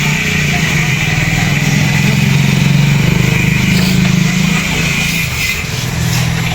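Motorcycle engine running steadily, growing a little louder through the middle and then easing slightly.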